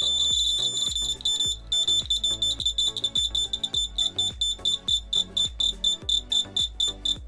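Small piezo buzzer sounding a high-pitched tone, steady at first, then breaking up about one and a half seconds in into rapid, uneven beeps several times a second. The alarm circuit is being closed and opened as the swinging hanging bolt touches and leaves the safety-pin contact.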